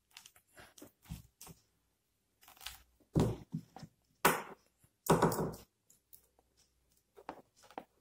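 Hands handling a PU leather notebook and its pens: scattered rubs, scrapes and clicks, the loudest a sharp click about four seconds in and a half-second scrape just after five seconds.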